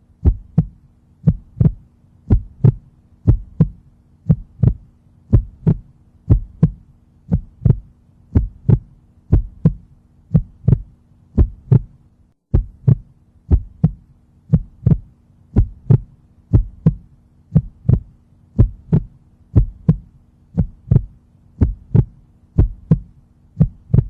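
Heartbeat sound effect: a steady double thump, beating about once a second, over a faint low steady hum.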